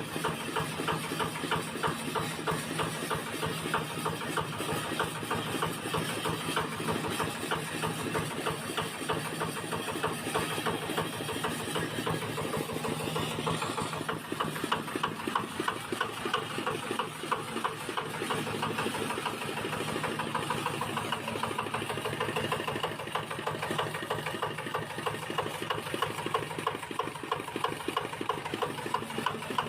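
Diesel engine of a 9 HP grass chopper running steadily, a rapid, even mechanical clatter.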